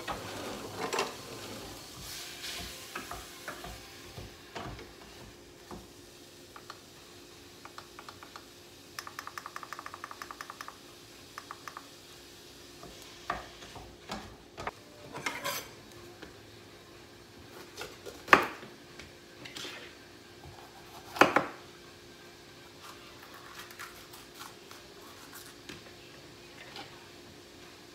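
Stovetop cooking: a wooden spoon stirring and scraping in a frying pan over a gas burner, with sizzling and the clink and clatter of utensils and pans. Two sharp knocks about 18 and 21 seconds in are the loudest sounds.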